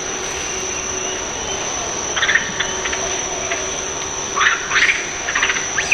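Steady high-pitched insect drone over a constant background hiss, broken by several short, sharp squeaky bursts about two seconds in and again clustered near the end.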